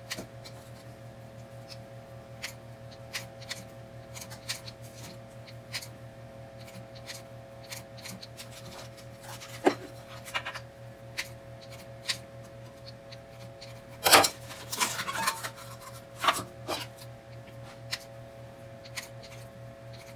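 Kitchen scissors snipping through soft biscuit dough, a quick run of small snips and clicks over a steady faint hum. A few louder knocks come around fourteen to fifteen seconds in.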